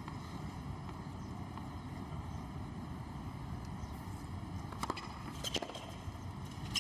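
Tennis racket strikes: a serve about five seconds in, a quick pair of hits and bounces about half a second later, and another hit at the very end. Beneath them is a steady low rumble of open-air stadium ambience.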